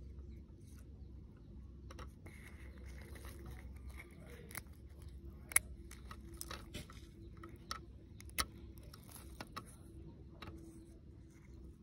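Fingers peeling cracked eggshell and its membrane off a chicken egg: small crackling and crinkling with a run of sharp shell clicks in the second half, the loudest about halfway through.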